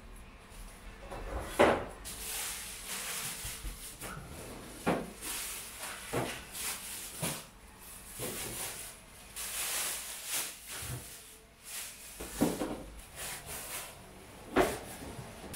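Groceries being unpacked from a rustling plastic bag into a refrigerator, with irregular knocks and bumps as items are set on the shelves.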